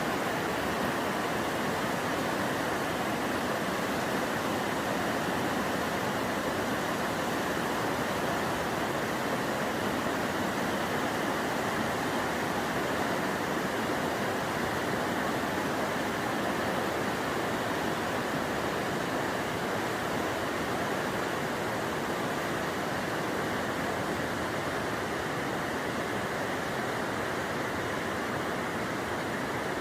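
Lufilyo River's mountain water rushing in a steady, unbroken flow.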